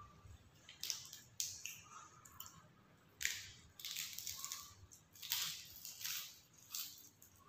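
Crisp fresh lettuce crackling and crunching close to the microphone as a leaf is folded around a piece of chicken satay and then bitten and chewed: a string of about eight short, sharp crunches.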